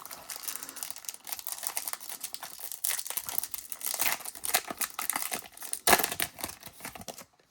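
Crinkling and tearing of a trading-card pack wrapper as a baseball card pack is opened: a steady crackling, with a louder rip about six seconds in.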